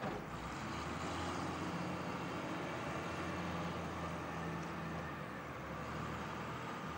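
Diesel engine of a wheeled excavator running steadily, a low hum with a faint rise and fall in its note.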